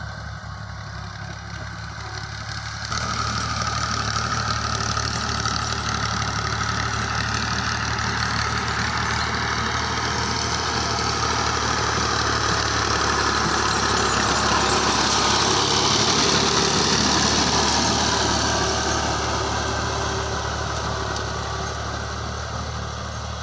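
Tractor engine running steadily. About three seconds in it gets markedly louder, swells to its loudest near the middle, then eases slightly.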